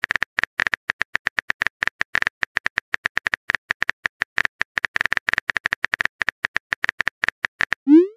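Virtual phone keyboard typing sound effect: a rapid, even run of short clicks, one per keypress, as a text message is typed out. Near the end a rising whoosh starts as the message is sent.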